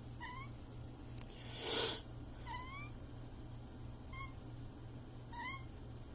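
Domestic cat meowing four times in short calls, each rising in pitch. A brief noisy burst, the loudest sound, comes about two seconds in.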